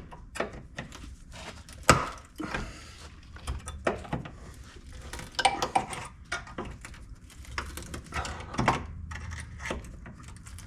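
Irregular metallic knocks and clanks of sheet-metal fender tabs being bent and folded over at a Jeep XJ's cut wheel opening, the loudest knock about two seconds in.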